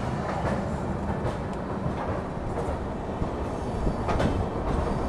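Passenger coach rolling on the rails as an electric-hauled express pulls out of a station, heard from the open coach doorway: a steady low rumble of the wheels with a few faint clicks.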